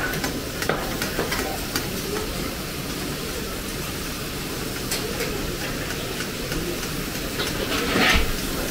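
Meat sizzling in a karahi wok as it is stirred, with a few short clicks scattered through and a louder clatter near the end.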